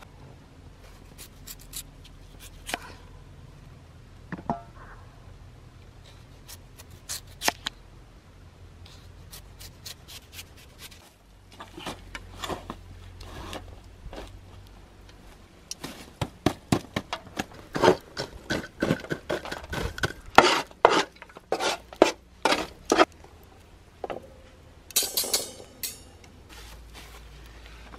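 Sharp clicks, knocks and scrapes of outdoor food preparation: a large knife cutting through a potato against a wooden stump, and metal tongs and a wire grill rack being handled over a metal sheet of coals. There is a dense run of quick clicks and knocks in the middle and a short scrape near the end.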